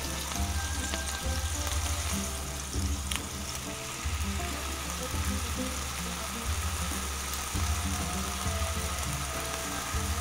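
Kefta meatballs and tomato sauce simmering in a clay tagine, the sauce sizzling and bubbling with a steady hiss over an uneven low rumble.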